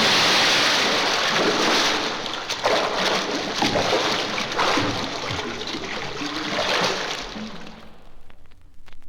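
A loud rushing, splashing noise on a sound-effects record, with irregular surges. It fades out about eight seconds in, leaving the faint crackle of the vinyl surface.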